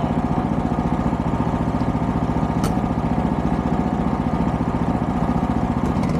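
Small off-road vehicle engine running steadily, with an even pulsing beat and no change in speed. A single brief click about two and a half seconds in.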